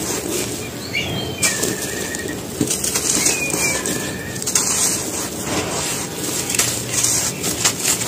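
Dry, gritty cement crumbled and squeezed by hand: a steady gritty crunching and rustling of powder and small lumps, with frequent sharper crackles.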